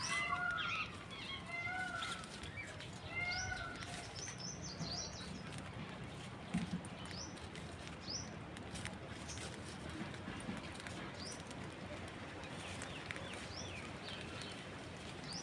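Birds chirping and calling: a run of short arched calls in the first few seconds, then scattered brief high chirps over a steady background.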